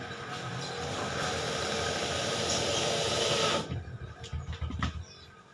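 Corded electric drill running steadily against a cabinet door handle as the handle is fitted, getting slightly louder, then stopping sharply about three and a half seconds in. A few light clicks and knocks follow.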